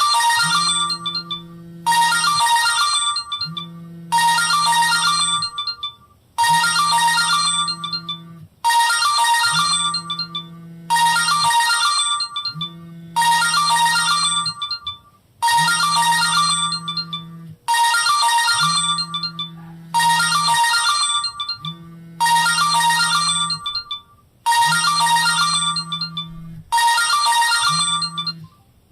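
Samsung GT-E2121L mobile phone ringing for an incoming call with a downloaded ringtone. A short bell-like musical phrase over a low held tone repeats about every two seconds and stops abruptly near the end.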